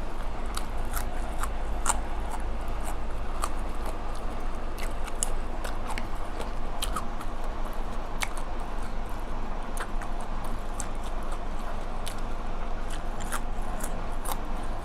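Close-miked chewing and mouth clicks from someone eating spicy red ant egg salad. Short, sharp smacks come irregularly, several a second at times, over a steady low hum.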